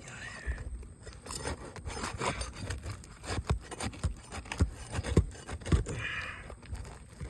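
Asphalt roof shingle being pried loose by hand: scraping of the shingle and tool against the roof, with irregular sharp clicks and knocks, the loudest about five seconds in.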